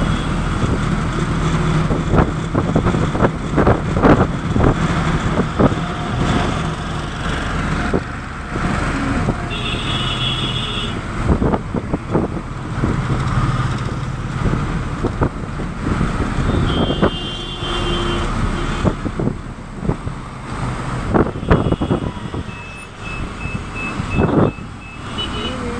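Road noise heard from inside a moving vehicle: a constant engine and tyre rumble with frequent knocks and rattles. Short high-pitched beeps sound twice, about ten and seventeen seconds in, with another thin high tone near the end.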